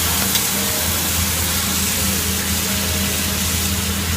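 Onion and tomato ketchup sizzling in hot olive oil in a frying pan: a steady, loud hiss, with a low hum underneath.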